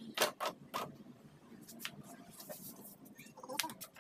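Sharp clicks and light knocks from a car power window mechanism being handled and taken apart: three clicks in the first second, then scattered fainter ones and a short cluster near the end.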